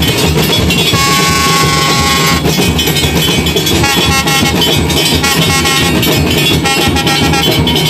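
Loud, dense din of a J'ouvert carnival street procession, with long steady horn-like tones sounding over it; the clearest comes about a second in and holds for over a second.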